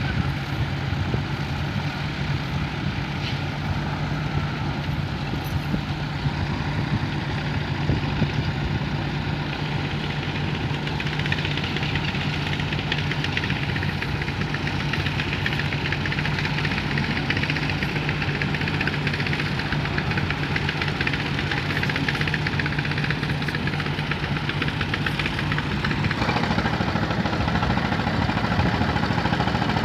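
Tractor diesel engine running steadily, with a low, even hum. Its note changes about 26 seconds in.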